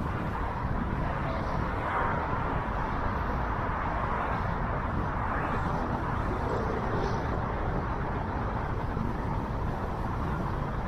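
Steady road and wind noise from a moving car: an even rumble, strongest in the low end, with no distinct events.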